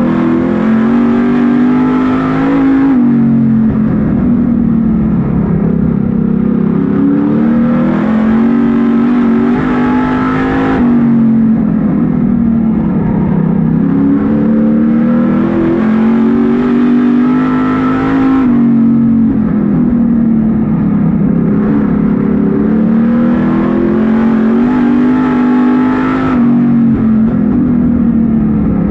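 Street stock race car's V8 engine heard from inside the cockpit at racing speed. It climbs in pitch under full throttle and then drops sharply as the driver lifts, in a cycle that repeats about every eight seconds as the car comes onto each straight and backs off into each turn.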